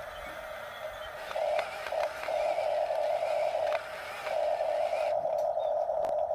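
Small electric motor and plastic gearbox of a radio-controlled toy construction vehicle whining steadily. It gets louder about a second and a half in, dips briefly near four seconds, then picks up again, with a few light clicks.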